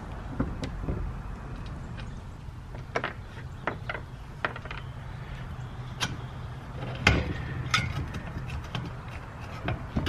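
Scattered clicks and knocks of a hex key and metal axle parts at a recumbent trike's wheel hub as the wheel is worked on its axle, with a steady low hum underneath.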